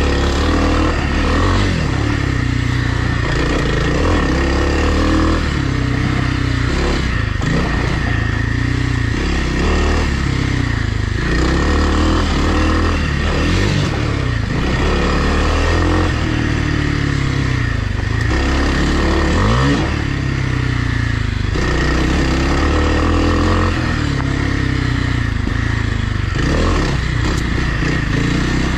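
Kawasaki KLX300R dirt bike engine on a trail ride, revving up and dropping back over and over as the rider works the throttle. A loose clattering and scraping runs under the engine.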